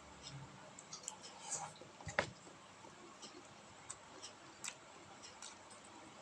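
Faint eating sounds: scattered small clicks and taps from a meal being eaten, with one louder knock about two seconds in.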